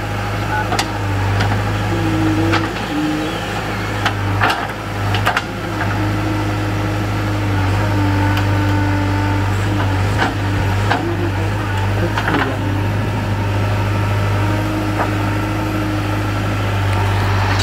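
JCB 3DX backhoe loader's diesel engine running steadily under load while the backhoe arm digs soil and dumps it into a tipper truck. A whine comes and goes as the arm works, with occasional sharp knocks.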